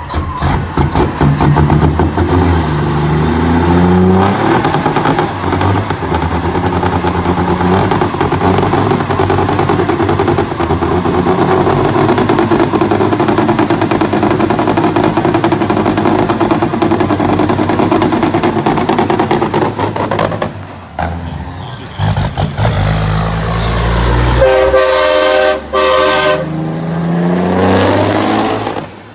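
Straight-piped diesel engine of a Kenworth semi tractor revving up and held at high revs through a burnout. Near the end, after a brief lull, a truck pulls away under load and a horn sounds in a few short blasts.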